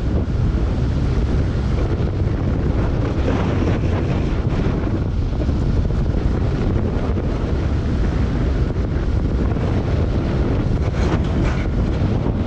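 Steady wind rush on the microphone over the running rumble of an alpine coaster sled's wheels on its single steel tube rail at speed, with a few short clatters about three to five seconds in and again near the end.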